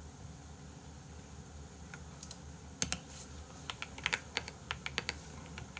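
Keystrokes on a computer keyboard: a few scattered clicks about two seconds in, then quicker, more frequent typing through the rest.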